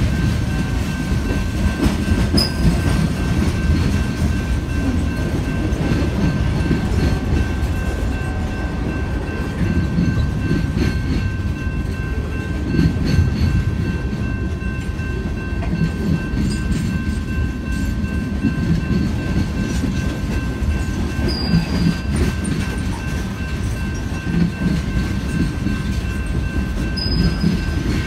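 Freight train cars rolling past close by: a steady low rumble of the cars with scattered clacks of the wheels over the rail joints, and a faint steady high tone throughout.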